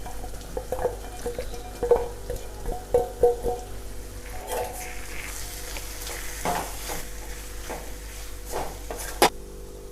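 Fried prawns being stirred into a masala in a frying pan: a faint sizzle with scattered scrapes and knocks of the spoon against the pan, and one sharper knock about nine seconds in.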